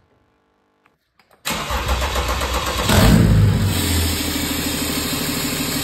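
BMW N57 3.0-litre straight-six diesel starting from cold for the first time after a bottom-end rebuild with new main bearings. It bursts into life about one and a half seconds in, runs louder briefly around three seconds, then settles into a steady idle.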